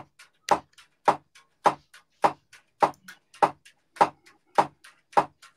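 Drumsticks striking a drum kit in a steady beat, a strong hit a little under twice a second with lighter taps between. It is heard only as bare room sound, because the band's mixed music feed has dropped out.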